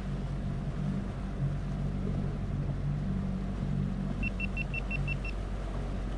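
Bow-mounted electric trolling motor running steadily on speed setting 3: a low hum that wavers slightly in pitch. About four seconds in, a quick run of seven short, high beeps.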